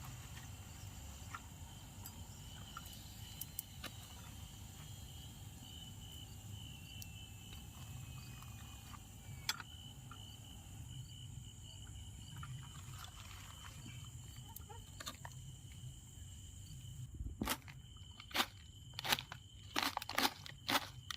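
Night insects such as crickets trilling steadily in the background. Near the end, a quick run of sharp crunches and clicks comes in, louder than the insects.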